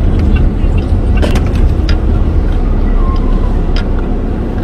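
Steady low rumble inside a car's cabin, with a few light clicks scattered through it.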